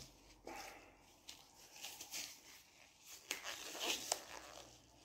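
Blue disposable gloves rustling and crinkling as they are handled and pulled apart, in irregular soft scrapes with a couple of sharper clicks in the second half.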